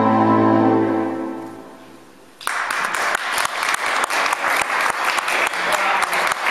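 A held musical chord fades away, and about two and a half seconds in an audience suddenly breaks into applause, steady clapping to the end.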